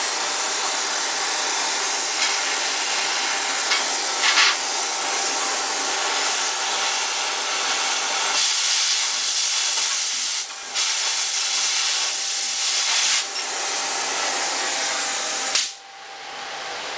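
Oxy-acetylene cutting torch on a Harris automatic torch handle, hissing steadily as it cuts steel, with a few short crackles early in the cut. About fifteen and a half seconds in the hiss drops away suddenly as the handle's lever is released and the gas shuts off.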